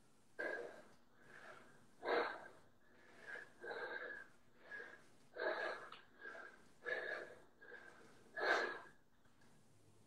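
A man breathing hard after burpees and air squats, with short heavy breaths coming about once a second.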